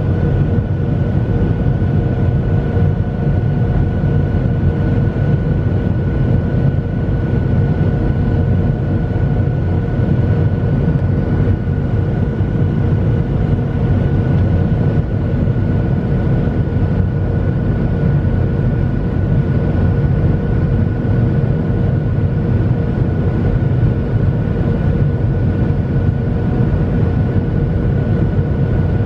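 Steady cabin noise inside a Boeing 737 airliner: the jet engines' even low rumble with a few constant thin whining tones on top.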